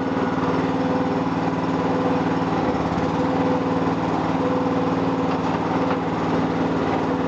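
Mini excavator's small engine running steadily.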